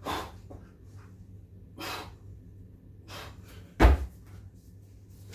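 Hard breaths during burpees with a 20 kg slam ball, then one heavy, deep thud a little under four seconds in as the weight comes down on the floor mat.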